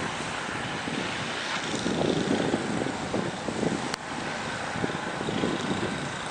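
Blizzard wind blowing across the microphone: a steady rush with irregular low buffeting gusts, and a single sharp click about four seconds in.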